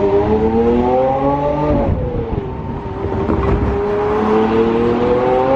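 Lamborghini Aventador's V12 accelerating, heard from the open-top cabin: the pitch climbs for about two seconds and drops sharply on an upshift, then climbs again more slowly.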